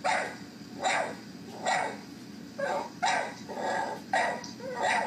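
A dog barking repeatedly, about eight short barks at a steady pace.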